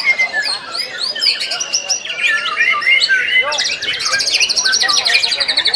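White-rumped shamas singing, several birds at once: a dense mix of quick varied whistles and chirps, with a fast, rattling trill joining about three and a half seconds in.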